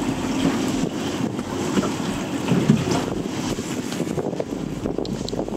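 Wind buffeting the microphone aboard an open aluminium fishing boat, over a steady wash of boat and water noise, with a brief louder gust about two and a half seconds in.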